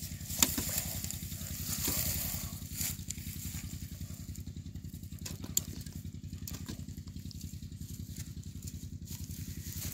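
A small engine chugging steadily in the background, mixed with the rustle of dry rice straw being handled and a couple of sharp clicks, one about half a second in and one near the middle.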